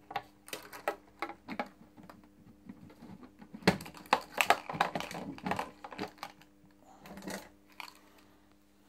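Plastic clicks and knocks from a moped's front storage box: the lid being shut and its key lock worked, with a dense run of sharp clicks in the middle.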